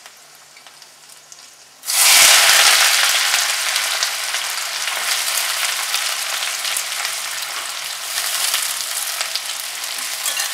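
Chopped onions dropped into hot mustard oil in a metal kadai: a sudden loud sizzle about two seconds in, settling into steady frying, with a spatula stirring them near the end.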